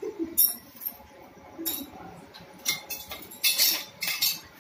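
Sharp clinks and rattles of hard objects, about five short bursts spaced irregularly, clustered more closely in the second half.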